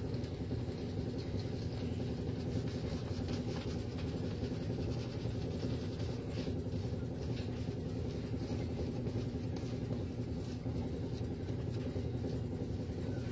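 A steady low mechanical hum throughout, with faint, irregular scratchy strokes of a razor being drawn over lathered stubble.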